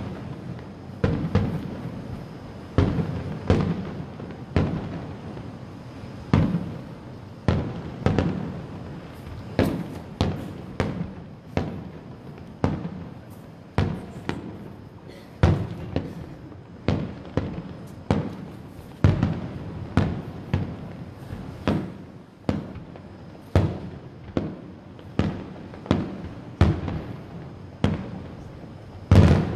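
Aerial fireworks shells bursting in a steady series, about one boom a second, each trailing off in a short rumble.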